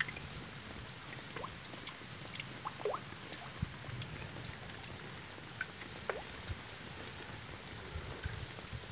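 Steady light rain, with scattered single drops landing close by, some of them dripping off the eave of a tiled roof.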